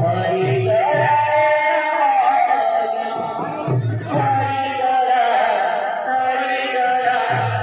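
Devotional kirtan music: singing with a held, stepping melody line, and two-headed barrel drums struck in short flurries about every three to four seconds.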